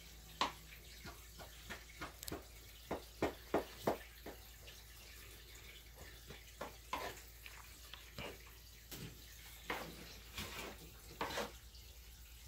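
Kitchen clatter: dishes and utensils clinking and knocking in an irregular run of short sharp strikes, busiest in the first four seconds.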